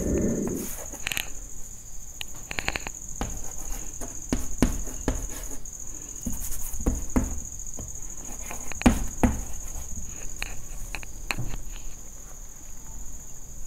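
Chalk tapping and scratching on a blackboard as a formula is written: a run of irregular short clicks and scrapes. A steady high-pitched whine runs underneath.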